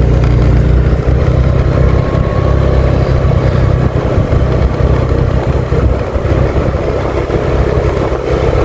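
An engine running steadily: a loud, low drone.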